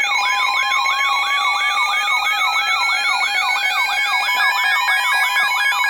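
Several emergency alert tones sounding together. A siren-like tone sweeps up and drops back about three times a second over steady alert tones, and a second tone glides slowly upward from just after the start. A pulsing beep joins about four and a half seconds in.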